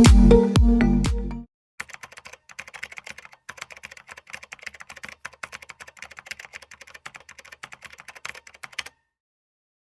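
Electronic dance music cuts off about a second and a half in, followed by quiet, rapid, irregular clicking of computer keyboard typing that stops abruptly about a second before the end.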